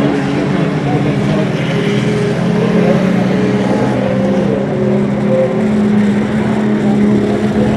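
Engines of vintage autocross race trucks running hard on a dirt track, one truck passing close by. A steady engine note that shifts slightly in pitch.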